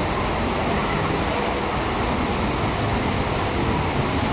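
Steady, unbroken rush of water from water-park features, falling and flowing water with no single event standing out.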